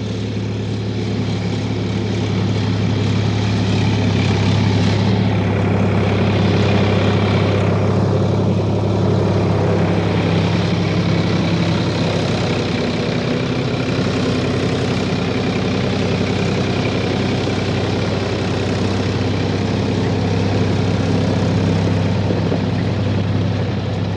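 A heavy engine running steadily at constant speed: a low, even hum with a fixed pitch that does not change throughout.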